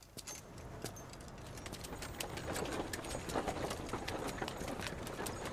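Hooves clip-clopping with irregular clicks and rattles, gradually growing louder as the animal approaches.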